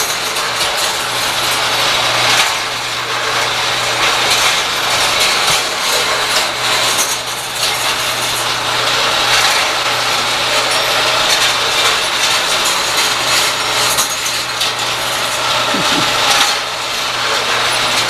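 Small motor-driven model machinery running, its gears and linkage clattering and ticking over a steady low hum.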